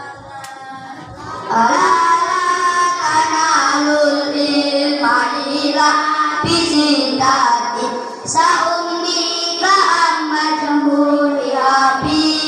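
Children singing a melody together into microphones over a PA, in phrases of long held notes that begin about a second and a half in, with short breaks between phrases.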